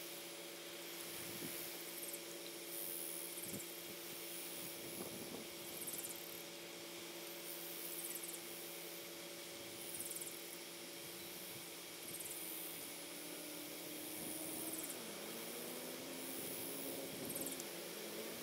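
Outdoor ambience by a creek: short, high-pitched buzzy calls repeat about once a second over a steady low hum, with a faint low tone that dips and rises in the second half.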